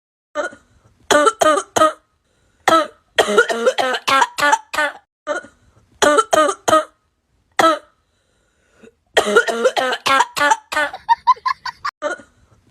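A person coughing in repeated fits, each a quick run of three to six coughs, with short pauses between fits: a persistent cough.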